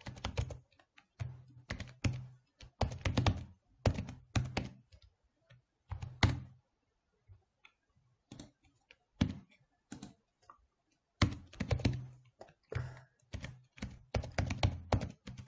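Typing on a computer keyboard: irregular runs of keystrokes broken by short pauses, with a longer pause about halfway through.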